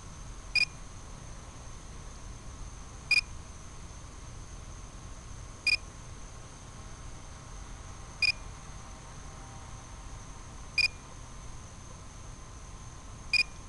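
Short electronic beep repeating at an even pace, about every two and a half seconds, six times, over a steady background hiss.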